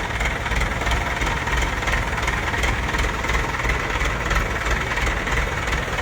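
Heavy diesel engine idling steadily with a continuous low rumble.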